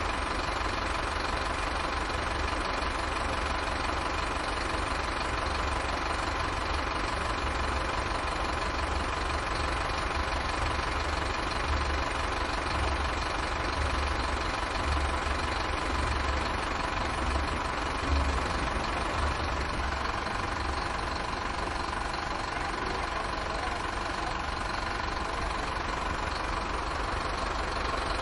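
Bus terminal ambience: a bus engine idling steadily, with a low rumble and a faint constant hum.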